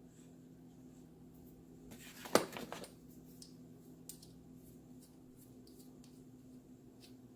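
Hand tools being handled in a plastic tool case: a short clatter of knocks about two and a half seconds in, then a few faint light clicks, over a steady low hum.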